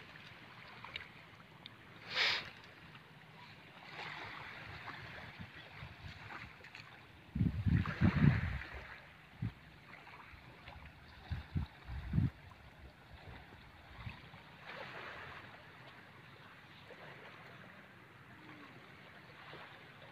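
Wind buffeting the microphone in low gusts, strongest about eight and twelve seconds in, over a faint steady wash of shallow water.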